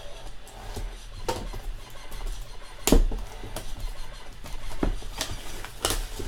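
Light handling noises as a sealed box of sports cards is opened: scattered taps and clicks with faint rustling, the sharpest tap about three seconds in.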